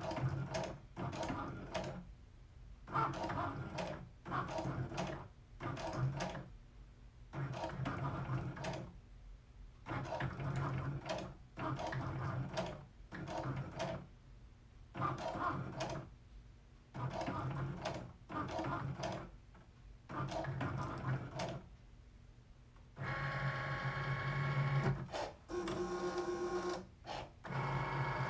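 Cricut Maker's motors whirring in short stop-start bursts as the Foil Quill head draws lettering through foil onto cardstock, with one longer whir near the end.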